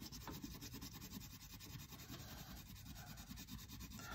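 Faint scratching of a wax crayon rubbed over paper while an area is coloured in.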